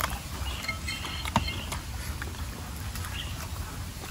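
Eating sounds: scattered smacks and clicks of food being handled and chewed, the sharpest about a second and a half in, over a low steady rumble and faint bird chirps.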